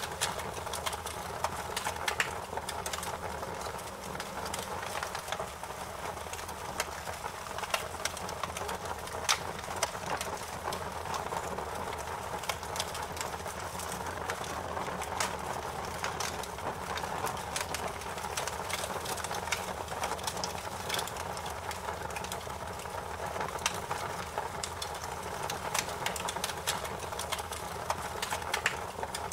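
Wood fire crackling in a fireplace: a steady hiss with frequent, irregular sharp pops and snaps.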